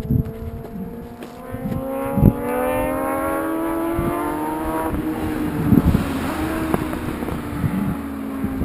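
A vehicle engine accelerating, its pitch rising steadily for about five seconds and then holding level, with scattered knocks from the handheld camera.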